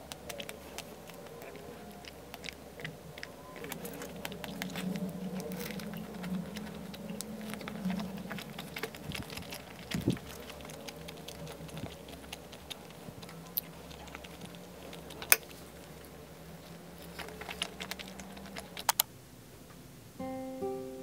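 Quiet tabletop eating sounds: scattered light clicks and taps of a small spreader against a plastic cream-cheese tub and tableware as cream cheese is scooped out. A soft thump comes about halfway through, and a sharp click a few seconds later.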